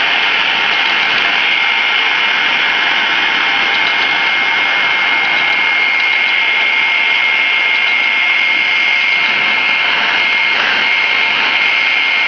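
Handheld hair dryer blowing steadily, its fan giving a constant rush of air with a steady high whine.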